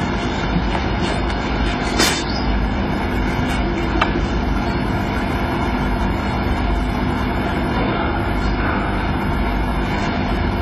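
Hushed snooker arena ambience: the steady low hiss and murmur of a quiet, watching crowd, with two brief faint knocks about two and four seconds in.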